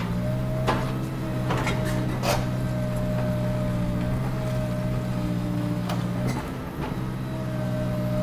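Komatsu PC200 hydraulic excavators' diesel engines running steadily under digging load, with a constant whine above the engine note. Several sharp knocks as the buckets work the soil, and the engine note dips briefly about two-thirds of the way in.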